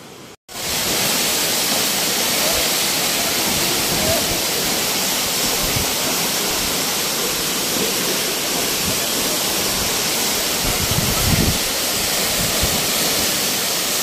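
Waterfall crashing into its plunge pool close by: a loud, steady rushing noise that comes in abruptly about half a second in.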